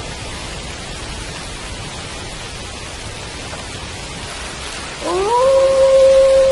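Steady rain falling. About five seconds in, a wolf begins a howl that slides up in pitch and then holds one long note.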